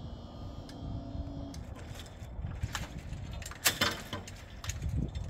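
Wind rumble on the microphone with a steady low hum that cuts out about a second and a half in, followed by a run of knocks and rustles, the loudest a sharp knock a little past halfway.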